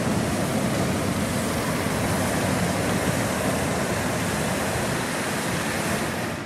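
Hot-air balloon propane burner firing into the envelope during inflation: a steady rushing roar that cuts off sharply near the end.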